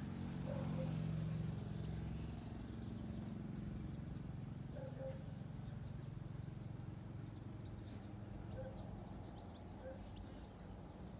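A steady high-pitched insect drone over a low hum, with a few faint short calls scattered through.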